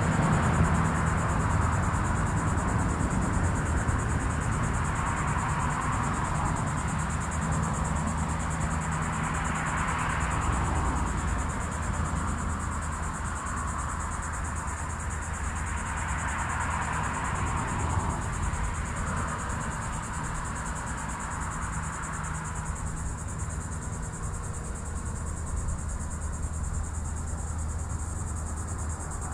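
A steady high-pitched insect drone, like crickets or cicadas, carries on without a break. Underneath is a low rumble and a hiss that swells and fades a few times.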